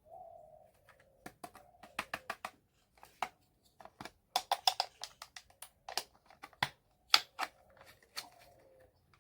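Miniature toy kitchen pieces being handled: light, irregular clicks and taps coming in quick clusters, with a sharper tap a little after seven seconds.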